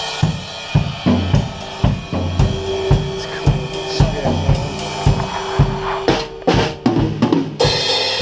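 Drum kit played in a steady groove, bass drum and snare hitting a few times a second under hi-hat. A held note sounds along with it for a few seconds in the middle, and cymbal crashes come after about six seconds.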